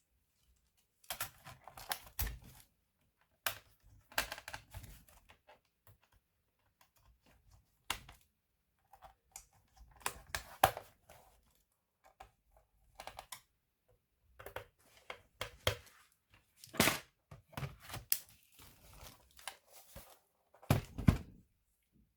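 Irregular clicks, knocks and brief rustles of hands handling laptop parts, a dozen or so sharp knocks spaced unevenly with short pauses between them.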